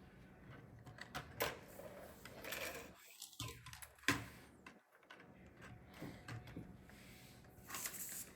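Faint clicking and light rattling of plastic Lego bricks being handled and pressed together, a few separate clicks spread irregularly, one sharper click about four seconds in.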